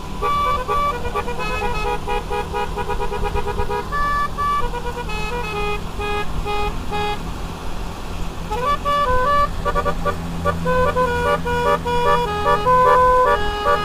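Basuri keong telolet horn playing a fast tune of stepped horn notes, with a short break about seven seconds in before the tune starts again, over a steady low engine hum.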